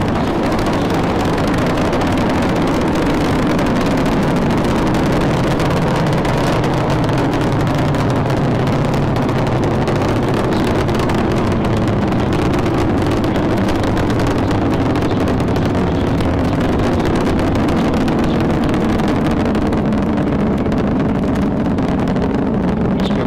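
Space Shuttle Discovery in powered ascent: its two solid rocket boosters and three main engines give a loud, steady, deep rumbling roar of rocket exhaust, the hiss on top thinning slightly near the end.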